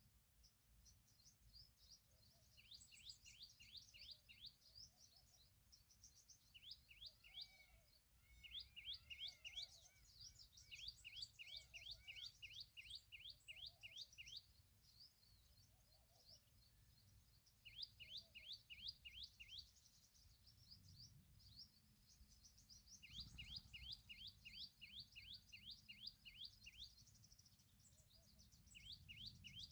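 Small birds chirping faintly in rapid trills of quick, high, repeated notes, several in a second. They come in bouts a few seconds long with short pauses between, and a few lower, softer notes join in during one bout.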